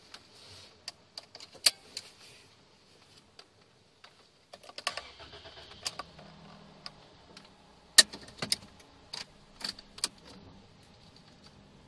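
Scattered, irregular sharp ticks and taps, like water drops left by the rinse falling onto the car's roof and windshield. A faint low hum comes in about five seconds in.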